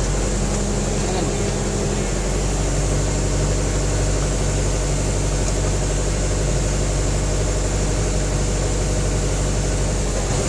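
A large engine idling steadily, a constant low hum with an unchanging pitch.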